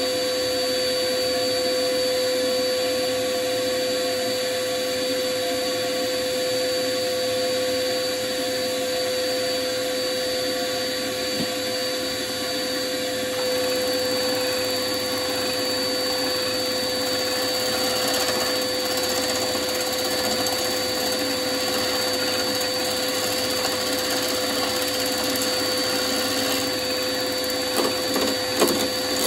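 Wood lathe running with a steady whine while a bowl blank is turned, with a few sharp knocks near the end.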